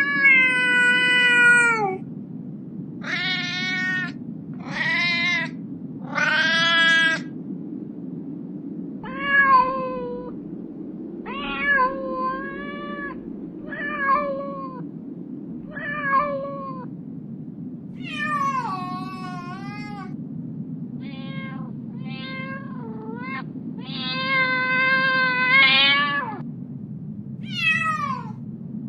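Kittens meowing again and again: about a dozen separate meows, some short and some drawn out, the longest running about two seconds shortly before the end, over a steady low background hum.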